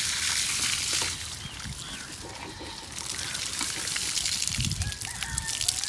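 Water from a garden hose spraying onto new brickwork and trickling down the wall as the bricks are cured. The splashing is loudest in the first second, then settles to a softer trickle.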